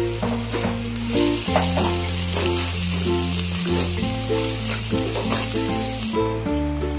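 Chopped onions and green chillies sizzling in hot oil in a metal pan, with a metal spatula scraping and stirring them; the sizzle grows louder about a second in and eases near the end. Background music plays throughout.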